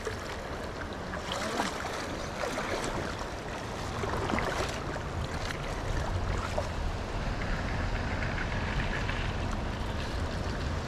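Steady running water of a trout river, an even noisy wash, with a low rumble underneath.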